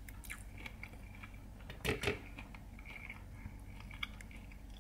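A person chewing a mouthful of air-fried chicken wing, with small faint mouth clicks and a couple of louder bites about two seconds in.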